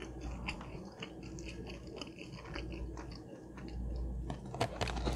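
Close-miked chewing: a person eating a mouthful of food with her mouth closed, a run of small irregular clicks, growing denser and sharper near the end.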